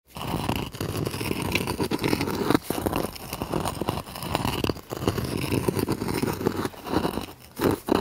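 A small rock dragged and scraped across a stone surface: a gritty, rasping scrape in three long passes of about two seconds each, separated by brief pauses, with another pass beginning near the end.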